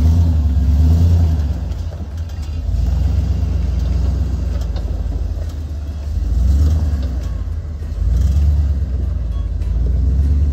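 Chevy K2500 pickup's engine running at low revs as the truck crawls over rocks, swelling several times with bursts of throttle.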